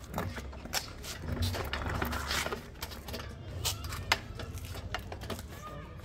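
Parts of a wet-dry vacuum cleaner being handled and fitted together by hand: irregular clicks and knocks over a low rumble.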